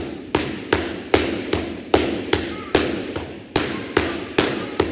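Boxing gloves smacking focus mitts in fast alternating punches, a steady rhythm of about two and a half hits a second, each hit dying away quickly.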